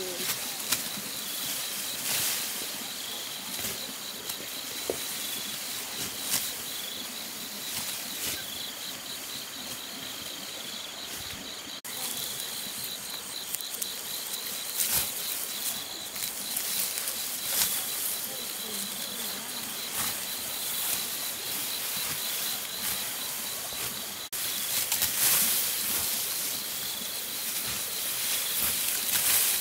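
Insects chirring steadily in a pulsing high tone, with a second intermittent chirp a little lower, over repeated rustling and brushing noises.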